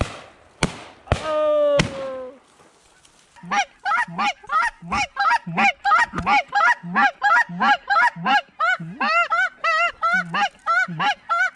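Three shotgun shots in the first two seconds, then goose honking: one falling honk, then rapid, regular honks about three a second, joined by a second overlapping series of honks about nine seconds in.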